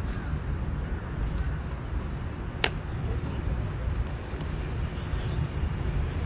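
A single sharp crack of a baseball impact about two and a half seconds in, over a steady low rumble.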